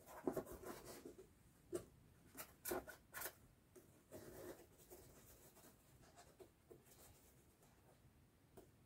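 Faint rubbing and a few light taps of foam pieces being handled and pressed against a foam helmet shell, with a soft rustle about four seconds in.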